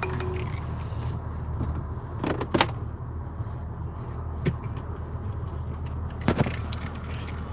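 Steady low rumble of a car's cabin while driving, with a few short sharp clicks, a pair about two seconds in, one in the middle and another pair near the end.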